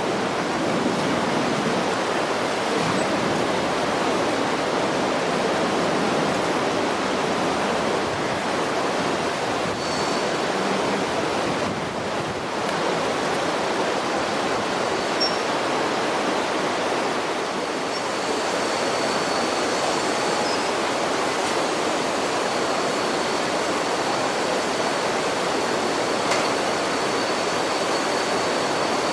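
A steam locomotive blowing off steam: a steady, loud rushing hiss that runs on unbroken, with a faint high whistle-like tone joining about two-thirds of the way through.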